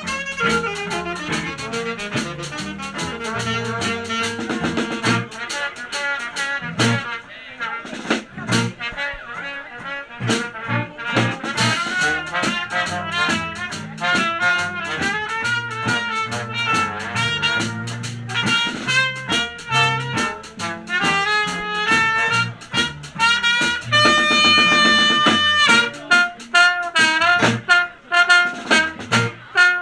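Live swing band playing: saxophone, trumpet and trombone over guitar, with a steady beat. Near the end the horns get louder and hold a long chord.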